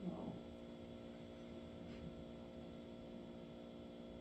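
Quiet room tone dominated by a steady electrical hum with many evenly spaced tones. A brief faint sound comes right at the start, and a faint tick about two seconds in.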